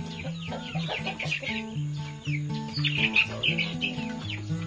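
Young Brahma chickens peeping and clucking, many short falling chirps in quick succession, loudest a little after the middle. Under them runs background music of slow, evenly stepping held notes.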